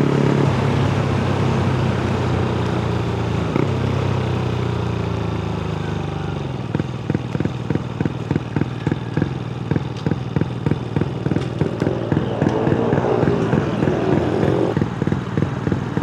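Honda Grom SF's single-cylinder engine with a loud exhaust, running steadily while slowing, its pitch gradually falling. About six and a half seconds in it drops to a choppy, uneven idle pulsing a few times a second.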